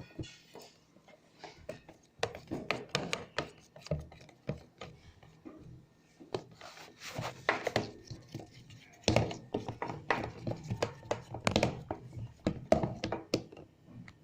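Slime mixture of glue and boric acid water being stirred in a bowl: a utensil knocking and scraping against the bowl in irregular clicks, busier and louder in the second half.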